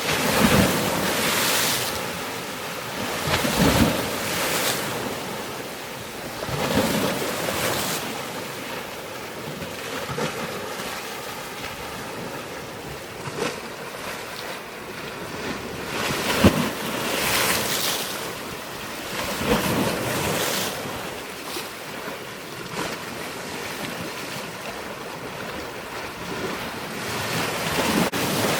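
Water washing in irregular surges every few seconds, with wind on the microphone.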